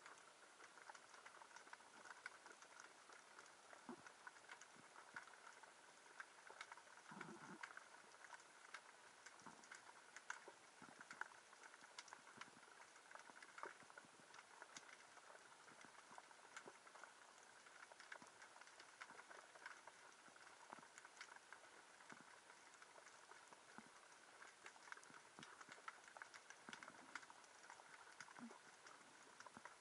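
Faint, steady underwater crackle of many tiny irregular clicks, the background sound of a rocky reef heard through a camera's waterproof housing, with a soft low thump about a quarter of the way in.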